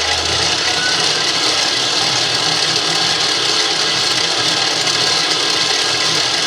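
GE Profile Smart Stand Mixer running steadily at speed 5 with no attachment fitted: a constant motor whir that reads about 78 dB on a sound level meter.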